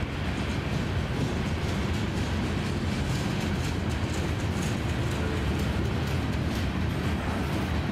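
Freight cars rolling past on the rails: a steady rumble of steel wheels on track.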